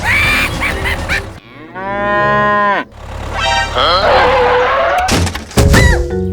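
A cow mooing once, a single held call of about a second that drops in pitch at its end, among short chirping sound effects over a steady low hum.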